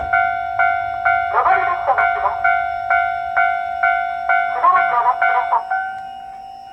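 Japanese talking level crossing's electronic alarm bell, struck about twice a second over a ringing tone. A recorded woman's voice announcement sounds twice over it. The strikes stop a second before the end, leaving the tone to fade.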